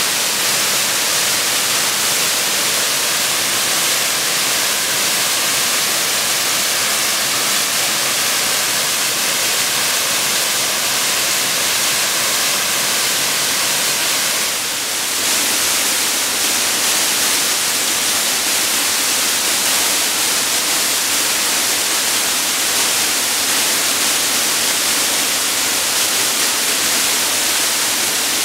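Waterfall pouring down a steep rock face into a plunge pool: a steady, loud rush of falling water, with a brief dip in level about halfway through.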